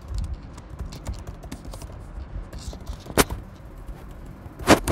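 Typing on a computer keyboard: irregular key clicks, with a louder clack about three seconds in and a couple more near the end.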